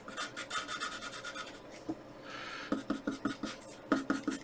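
Pencil scratching on graph paper in a run of short strokes while a structure is drawn.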